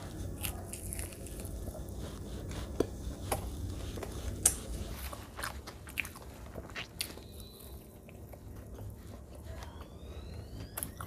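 Close-miked biting and chewing of a crisp battered fried snack, with sharp crunches, loudest about three to six seconds in, that soften into quieter chewing.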